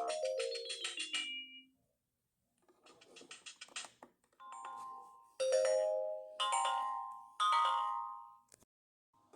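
Siemens AL21 mobile phone ringtones: a melody ends in a falling run of notes, and after a short pause a new ringtone begins with quick soft notes, then three loud chimes about a second apart, each dying away.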